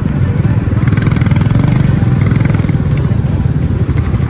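Motorcycle engine running steadily under way, a dense low rumble of rapid firing pulses.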